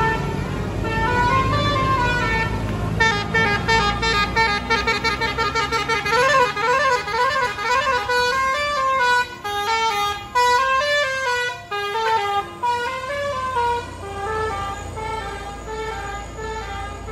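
A bus's Basuri multi-tone 'telolet' air horn playing a melody of quick stepping notes, with a low engine rumble beneath in the first half; the notes thin out into short phrases and stop near the end.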